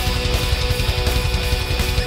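Heavy rock intro music: strummed electric guitar over a fast, driving low beat.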